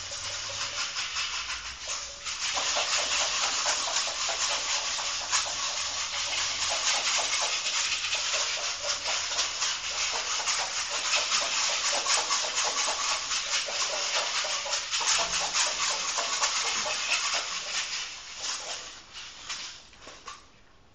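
Dense, rapid scratching and rustling noise with a brief dip about two seconds in, fading out near the end.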